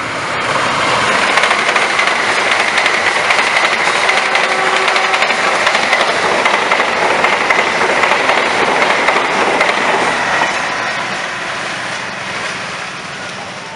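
Diesel-hauled passenger express passing close at speed, its carriage wheels clattering over the rail joints in a rapid run of clicks with a steady high whine underneath. It swells up about a second in, stays loud, and fades after about ten seconds as the train moves away.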